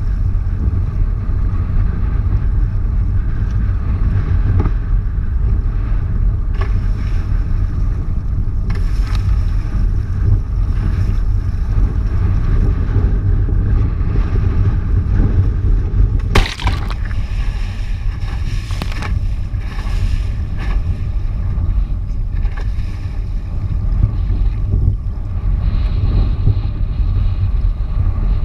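Heavy wind rumble on a board-mounted action camera's microphone, with water rushing and splashing past a wingfoil board as it rides. A sharper splash or knock comes about 16 seconds in.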